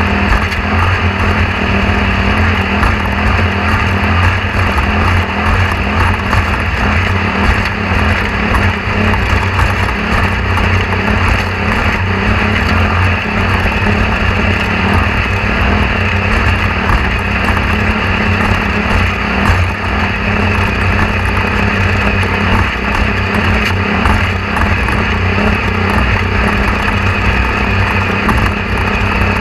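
A steady mechanical drone: a low hum with a rushing noise over it, unchanging in level and pitch.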